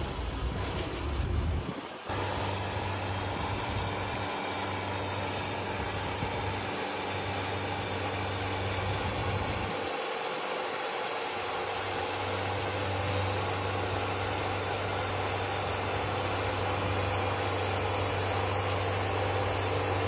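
Wood-Mizer Super Hydraulic portable band sawmill running steadily, its engine humming as the saw head travels back and forth slicing a squared log into boards. The sound changes abruptly about two seconds in.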